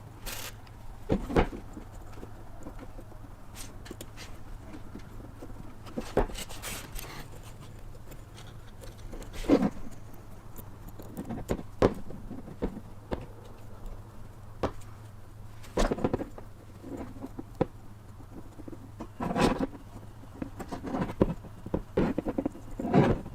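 Scattered small clicks, taps and scrapes of hands working a piston ring onto a Yamaha R6 piston, irregular and a few seconds apart, over a low steady hum.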